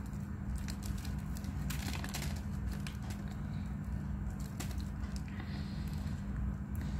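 Clumps of crumbly chalk being squeezed and crushed between the fingers: an irregular scatter of small crunches and crackles over a steady low hum.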